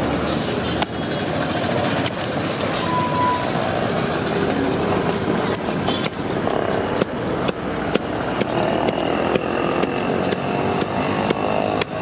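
A toothed fish scaler scraping scales off a whole fish, in quick repeated strokes that come thicker in the second half, over a steady background of street noise.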